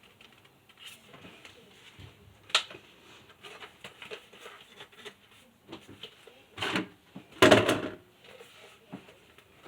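Painting supplies being handled: a sharp knock about two and a half seconds in, a clatter shortly before seven seconds, and the loudest, a brief rattling clatter about seven and a half seconds in.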